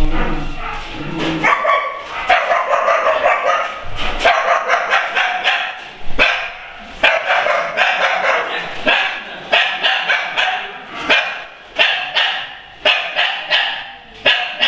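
Several caged shelter dogs barking over and over, the barks overlapping so that a new one starts every fraction of a second.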